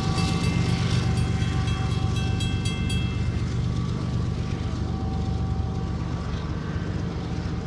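Railroad crossing bell ringing rapidly over the steady low rumble of a Union Pacific freight train. The bell stops about three seconds in, and the train's low rumble carries on.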